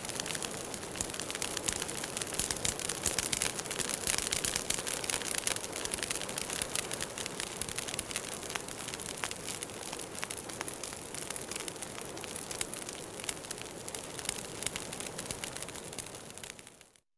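Firewood burning in a bonfire, crackling steadily with many small pops over a soft hiss. It fades out just before the end.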